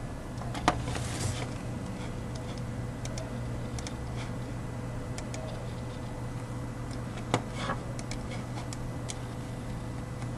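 Scattered computer mouse and keyboard clicks over a steady low hum, with two sharper clicks: one under a second in and one about seven seconds in.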